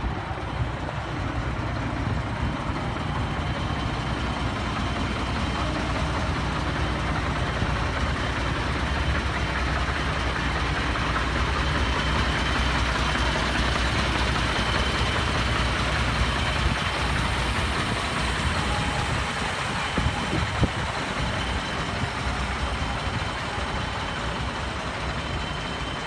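MAN TGS 32.360 concrete mixer truck's six-cylinder diesel engine idling steadily, with a couple of brief knocks about three-quarters of the way through.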